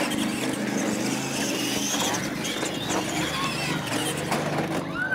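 Radio-controlled monster trucks racing side by side on pavement, their motors and tyres running steadily.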